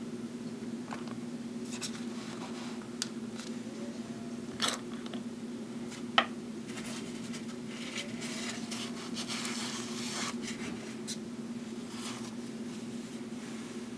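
A glass ink bottle being opened and a vintage fountain pen being unscrewed by hand: light clicks and taps, a sharp click about six seconds in, then soft scraping and rubbing. A steady low hum runs underneath.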